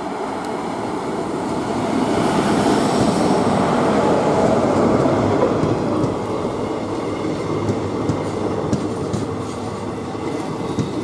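WAP-4 electric locomotive hauling ICF passenger coaches past. The noise swells to its loudest as the locomotive goes by, about two to five seconds in, then settles into the coaches rolling past with regular clicks from the wheels over the rail joints.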